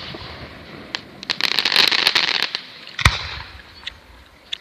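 Fireworks going off: a dense burst of crackling for about a second, then a single loud bang about three seconds in, with a few scattered pops.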